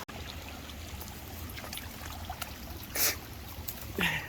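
Water from a small creek waterfall trickling and pouring steadily. A short hiss comes about three seconds in, and a brief falling vocal sound near the end.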